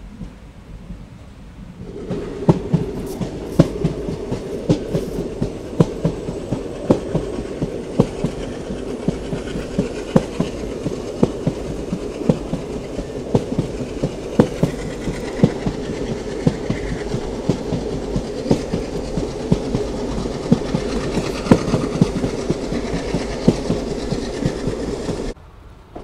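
Passenger train coaches of the Boat Mail Express running at speed, heard from the open side of the coach: a steady rumble with regular clacks of the wheels over rail joints. It starts abruptly about two seconds in and cuts off just before the end.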